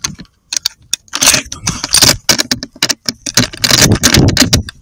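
Handling noise from a rifle and its thermal scope being moved: a loud, irregular run of clicks, knocks and scrapes picked up close by the scope's built-in microphone.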